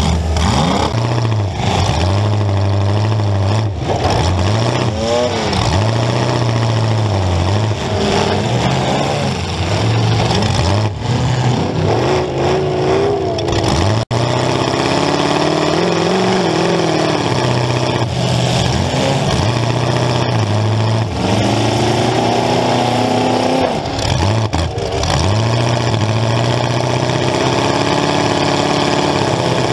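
Demolition derby car's engine heard from onboard, revving up and falling back again and again through open exhaust stacks in the hood. The sound drops out for an instant about fourteen seconds in.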